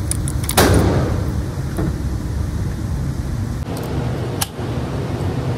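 Steady low rumble under sharp clicks and knocks of cartridges and a Galil ACE rifle magazine being handled. The loudest knock, about half a second in, rings on briefly.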